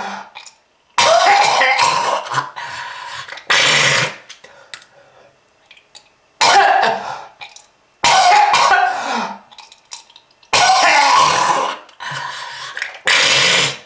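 A person's hacking smoker's cough: about six hard coughing bouts a couple of seconds apart, each starting sharply and tailing off with throat clearing.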